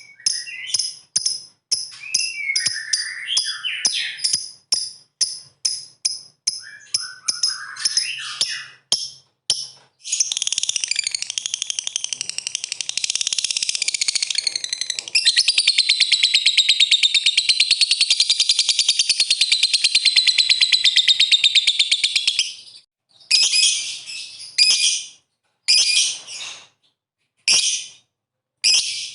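Lovebird giving its ngekek call. First comes a run of quick high chirps, about three a second, with a few lower sliding notes. About ten seconds in, it breaks into one long, unbroken rapid chattering trill that lasts some twelve seconds. It then falls back to short separate bursts of chatter.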